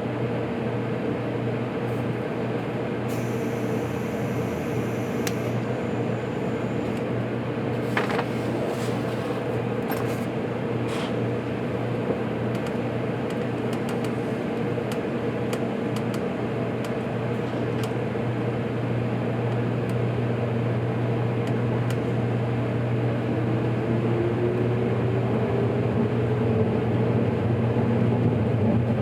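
Interior running noise of a JR Kyushu 783-series electric limited-express train pulling out of a station: a steady hum that slowly gets louder, with scattered light clicks in the first half and a whine that rises in pitch over the last few seconds as the train gains speed.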